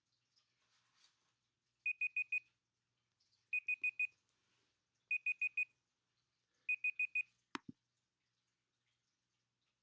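Electronic timer alarm beeping: four bursts of four quick, high-pitched beeps, evenly spaced, then a single sharp click near the end, after which the beeping stops.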